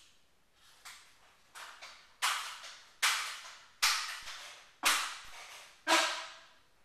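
Daisy 880S pellet rifle being pumped: a run of about eight strokes roughly a second apart, each starting sharply and fading away. The first three are faint and the last five much louder.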